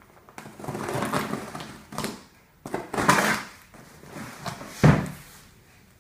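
A cardboard shipping box being opened by hand: irregular rustling and scraping of the cardboard and packing, with a louder knock near the end.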